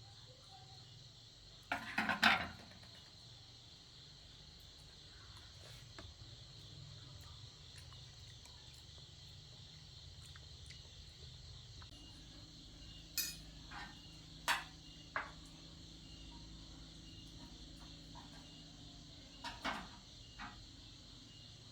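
Steady high chirring of insects, with a few short sharp clinks and knocks: a cluster about two seconds in and a scatter more in the second half.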